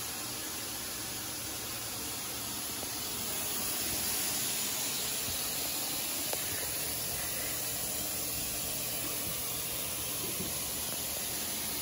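Steady hiss of carpet-cleaning equipment running, a little louder from about four seconds in.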